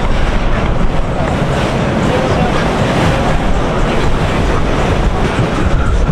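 Boat motor and water noise with wind buffeting the microphone, and indistinct voices.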